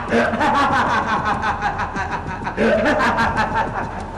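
A person laughing loudly in rapid pulses, in two long bouts with a short break in between.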